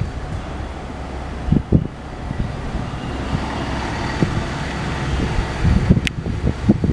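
WDG-4D diesel-electric locomotive's 16-cylinder EMD 710 two-stroke engine running as it approaches at the head of a container freight train, its rumble growing a little louder. Wind buffets the microphone throughout, and there is a single sharp click about six seconds in.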